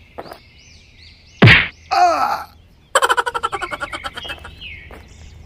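A cartoon punch sound effect: one loud whack about a second and a half in, followed by a short cry of pain falling in pitch, then a quick chattering run of sound that fades. Birds chirp faintly in the background.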